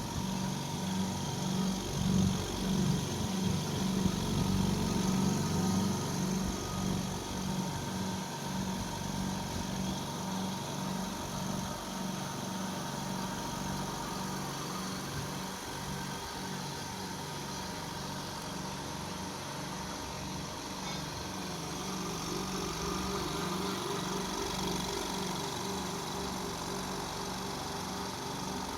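Oil-free electric air compressor (2 HP, 50 L tank) running steadily, a little louder in the first few seconds.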